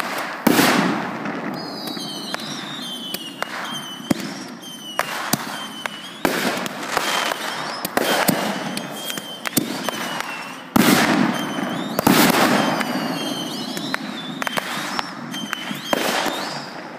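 Consumer aerial fireworks shells bursting in a rapid, irregular string of sharp bangs, each echoing briefly, with the loudest bursts about half a second in and around eleven and twelve seconds. Between the bangs come repeated high, falling whistles.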